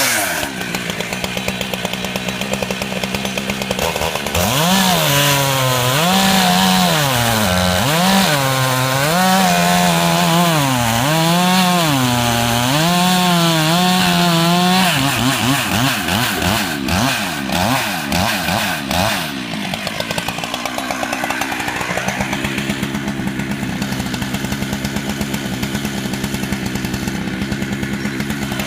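Two-stroke chainsaw running at a steady lower speed, then opened up into a cut after about four seconds, its pitch rising and falling for about ten seconds as the chain works through a log, before settling back to a steady lower speed for the last several seconds.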